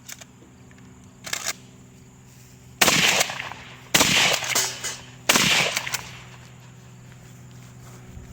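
Three loud shotgun shots, a little over a second apart, each ringing out briefly after the blast, with a softer bang about a second and a half before them.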